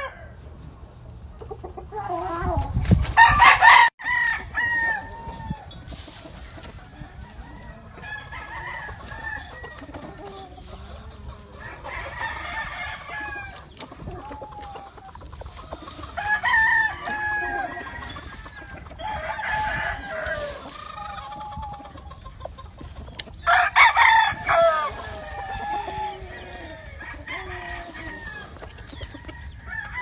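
Gamefowl roosters and hens calling: a rooster crows loudly about three seconds in and again about three-quarters of the way through, with many short clucks and calls from the flock between.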